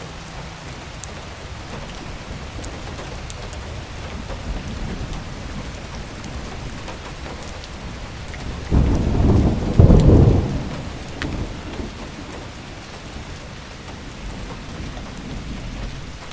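Steady rain with a loud clap of thunder about nine seconds in that peaks again a second later and rumbles away over the next couple of seconds.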